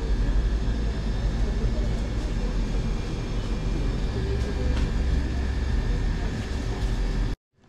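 Steady low rumble of shop background noise with a faint steady hum, cutting off abruptly near the end.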